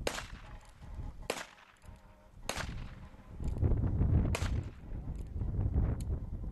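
Revolver fired five times, single sharp cracks one to two seconds apart. A low rumble starts halfway through and is the loudest sound.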